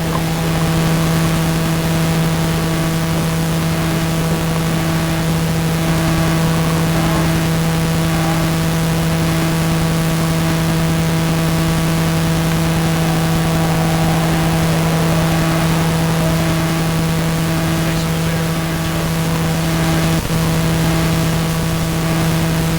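A loud, steady hum with overtones over a hiss, unchanging in pitch, with a brief drop about twenty seconds in.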